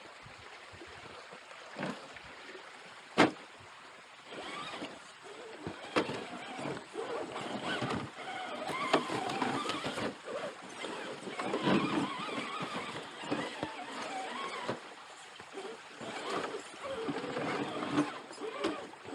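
Radio-controlled scale crawler truck working its way over rough, rocky ground: irregular scrapes, clatters and knocks, with one sharp knock about three seconds in.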